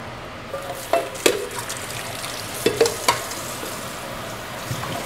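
Kitchen clatter: about five sharp metal clanks and knocks of pots and utensils, bunched from about one to three seconds in, some ringing briefly, over a steady background hiss.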